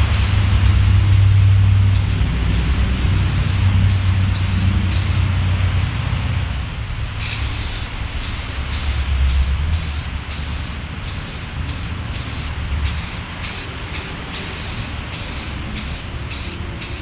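Etching primer being sprayed in many short hissing bursts, about two a second, with one longer burst about seven seconds in. A low steady hum runs underneath, loudest in the first half.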